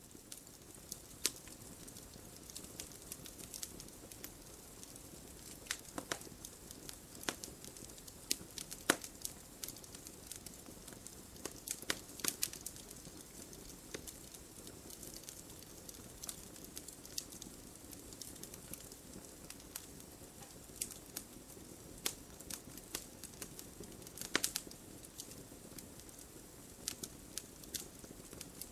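Campfire burning, with a steady low hiss and irregular sharp crackles and pops of wood.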